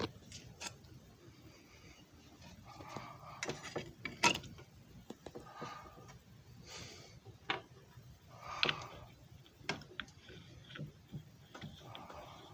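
Irregular clicks, knocks and short rattles of a JFJ Easy Pro disc repair machine's plastic parts being handled, with two louder knocks, the first about four seconds in and the second a few seconds later.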